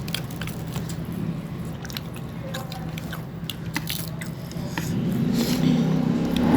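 Eating sounds from people working through a plate of biryani: chewing, and small wet clicks and squishes of rice and chicken being eaten. A steady low hum runs under them and swells louder near the end.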